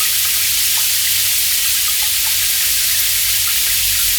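Shower running: a steady, loud hiss of water spraying down.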